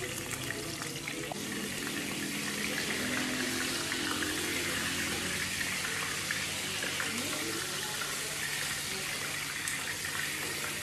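Beef burger patties sizzling in oil in a frying pan on a gas stove, a steady hiss.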